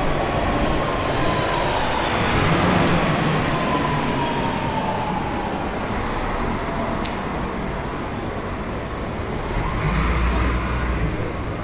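City traffic and rail vehicles running, with a whine that falls slowly in pitch over the first several seconds as a vehicle slows, and a low rumble swelling near the end.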